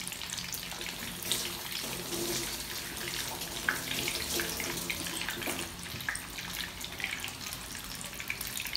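Cornflour-and-egg coated mutton chops frying in hot oil in a pan: a steady sizzle with many small crackling pops.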